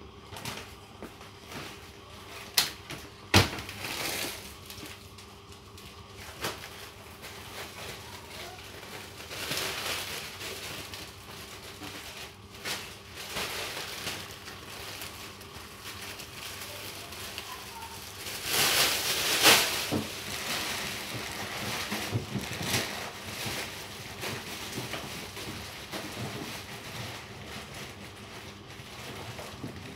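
Kitchen tidying sounds: scattered knocks and clatter of things being put away, with a louder stretch of rustling noise about two-thirds of the way through.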